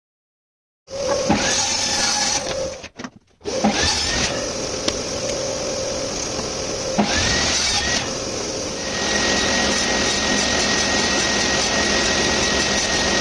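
Electric woodworking power tool running on wood, a steady motor whine with cutting noise, cutting out briefly about three seconds in and changing tone twice later.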